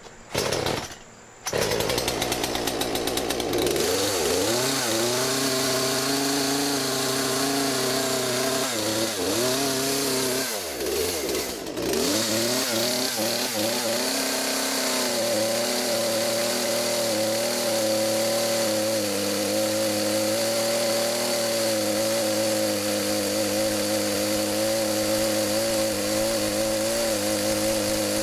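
Rebuilt Poulan P3314 chainsaw's two-stroke engine catching about a second and a half in and running, its speed dipping and picking back up several times before it settles to a steady pitch for the second half.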